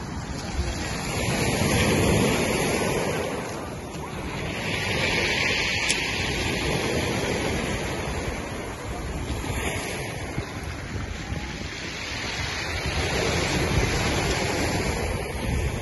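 Surf washing on a pebble shore, mixed with wind across the microphone; a steady rushing noise that swells and eases every few seconds.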